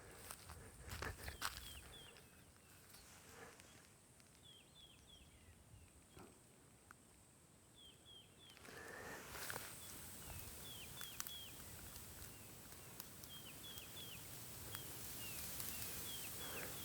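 Faint outdoor ambience: a small animal's short high falling chirps, repeated in twos and threes every second or so, over a few rustles and footsteps in the first couple of seconds and a soft hiss that grows from about halfway.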